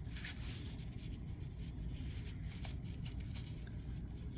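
Faint rubbing and light ticks of a rifle sling being handled and threaded through its buckle, over a steady low hum.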